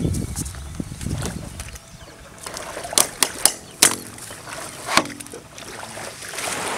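Several sharp knocks and clacks of hard PVC pipes being handled and knocked together while a raft's cracked pipe end cap is repaired: a quick cluster about three seconds in and one more near five seconds.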